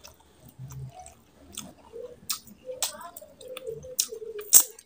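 Close-miked chewing of a mouthful of mutton curry and rice: irregular wet smacks and mouth clicks, the sharpest and loudest a little past four and a half seconds in.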